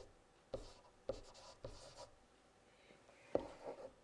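A stylus writing on a drawing tablet: faint short scratchy strokes and taps, a pause, then a quick cluster of strokes near the end.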